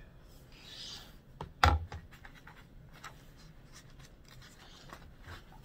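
Pages of a hardcover picture book being handled and turned, with a soft sliding swish of paper about a second in. Soon after comes one thump as the book is lowered onto the wooden table, followed by faint rustles and ticks of the page turning.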